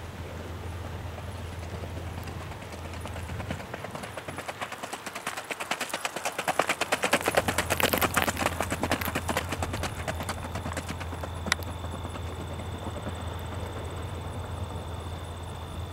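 Hoofbeats of a racking (single-footing) stallion on a gravel track: a quick, even four-beat clatter that grows louder as the horse comes past, then fades as it moves away.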